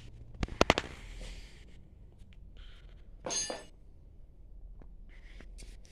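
Metal pump parts knocking together: a quick run of three or four sharp knocks about half a second in, then a single ringing metallic clink a little past three seconds.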